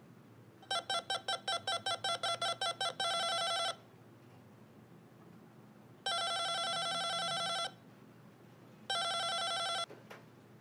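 Apartment door buzzer sounding in a quick string of short jabs, about five a second, then held for a moment, followed by two longer buzzes. It is someone at the street door ringing to be let up.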